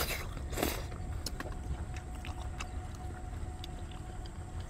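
Two short slurps of noodles in the first second, then soft chewing with scattered small clicks, over a steady low rumble.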